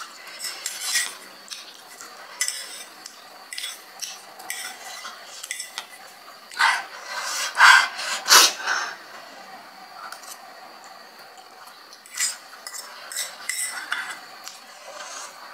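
Metal fork clinking and scraping against a small bowl while eating spicy instant noodles, in short irregular clicks. Louder slurping of the noodles comes about halfway through, with a sharp knock of the fork on the bowl.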